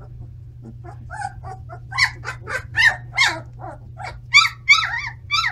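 Very young standard poodle puppies giving a quick run of short, high-pitched squeaky cries, several a second. The cries are faint at first and louder from about two seconds in.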